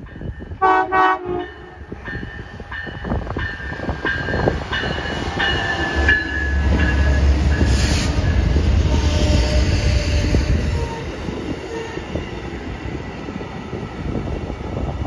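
Passenger train led by an EMD F59PHI diesel locomotive passing close by. A short horn blast sounds about a second in, and the locomotive's two-stroke diesel passes with a loud low rumble from about six to eleven seconds. The passenger cars' wheels then keep rolling and clattering over the rails.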